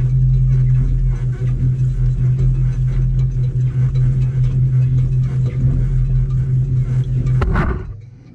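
Electric boat motor running with a steady low hum during a test run on a newly fitted motor controller; it stops abruptly about seven and a half seconds in, with a brief rising whine as it shuts off.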